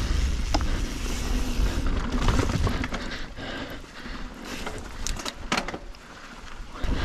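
Mountain bike rolling down a rocky dirt trail: a low rumble of riding noise that eases off about halfway, with a few sharp clicks and rattles a little past the middle.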